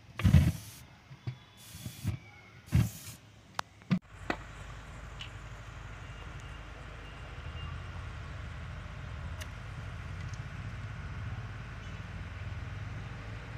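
Three short, loud rushing bursts in the first three seconds, gas puffing out of a plastic bottle's open mouth, with a few small clicks after them. From about four seconds in, a steady low rumble with faint hiss.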